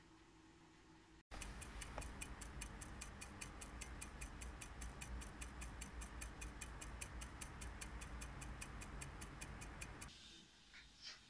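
Quick, even timer ticking, a little over four ticks a second, starting abruptly just over a second in and stopping shortly before the end, over a low hum.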